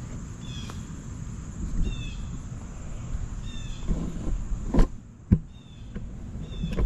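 Outdoor ambience: a bird chirping short falling two-note calls about every second and a half, over a steady high insect hiss and a low rumble. Two sharp knocks come about five seconds in.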